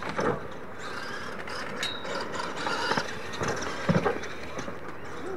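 Radio-controlled scale monster trucks racing, their motors and gear drives whining and rattling, with a few sharp thumps as they land off the jumps, the loudest about three and four seconds in.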